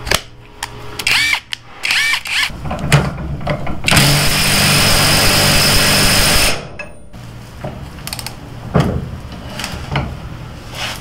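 Hercules 20V brushless 1/2-in compact impact wrench hammering a large nut tight, a loud steady run of about two and a half seconds starting about four seconds in. Near the end come a few sharp clicks as a torque wrench is put on the nut to measure how tight the impact wrench got it.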